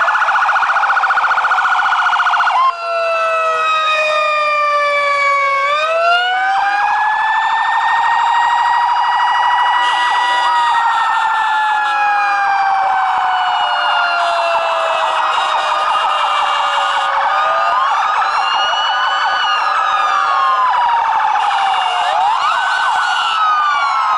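Several electronic sirens sounding at once. A fast yelp cuts off about two and a half seconds in, followed by overlapping slow wails that rise and fall, and quicker sweeps near the end.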